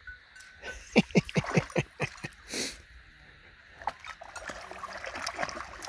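Irish setter pawing and pouncing in shallow lake water: a quick run of six or seven sharp splashes about a second in, then steadier sloshing that builds near the end as she wades about excitedly.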